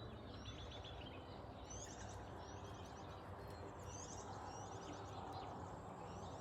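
Small birds calling: a short high chirp that falls in pitch, repeated every second or so, over a steady low background noise.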